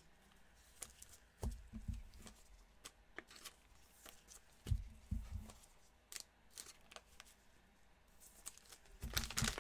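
Gloved hands handling a stack of trading cards: cards sliding and flicking against each other with light clicks and a few soft taps. Near the end comes a louder crinkling of a cellophane card-pack wrapper.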